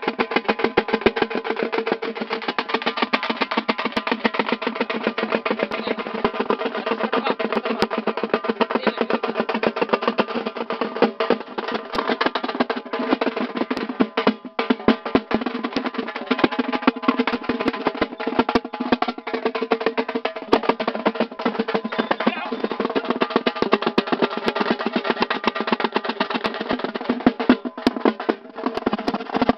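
Procession drums beaten in fast, dense rolls, with steady held musical notes over them.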